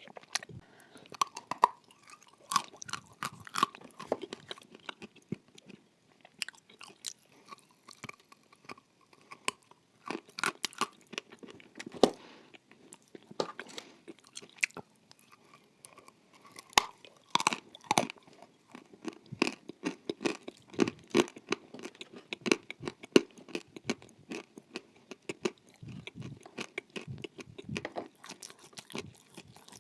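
Close-up crunchy bites and chewing of dry lumps of edible clay: sharp, irregular crunches with steadier chewing between bites.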